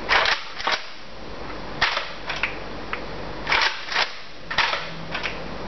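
Nerf foam dart blaster being primed and fired several times: a string of short, sharp clacks and pops, roughly eight in loose pairs.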